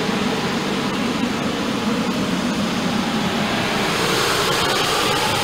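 Steady rush of a furnace-type blower fan in a water-to-air heat exchanger, pushing air from the outdoor wood boiler's hot-water coil through the plenum into the house ductwork. It grows a little brighter and louder from about four seconds in.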